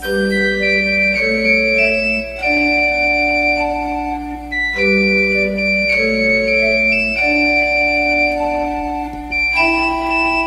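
Instrumental nursery-rhyme music: a keyboard with a sustained, organ-like sound plays a simple melody over held chords, the same phrase repeating about every five seconds.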